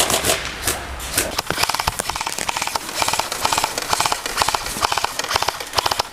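Airsoft guns firing in rapid full-auto bursts: quick trains of sharp clicks, repeated several times.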